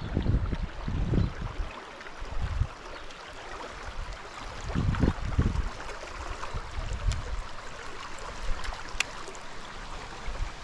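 Shallow, fast-flowing creek water rippling over logs and snags, a steady rushing wash. Low rumbles swell near the start and again about five seconds in.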